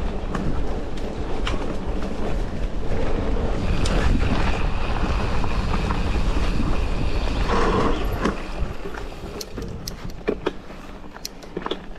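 Wind buffeting a GoPro Hero 10's microphone, with tyre noise, as a mountain bike rolls fast along a forest track, and a thin high whir in the middle. After about eight seconds the rumble eases and sharp clicks and rattles of the bike over the ground stand out.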